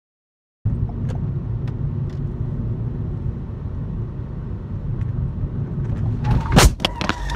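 Car cabin road noise, a steady low rumble while driving, broken about six and a half seconds in by a loud collision: several sharp impacts as the car is hit, with a steady tone starting at about the same moment.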